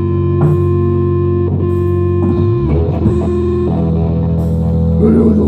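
Live rock band playing loud, sustained electric guitar chords with effects over bass. The chord changes about two seconds in, with a short slide, and changes again near four seconds.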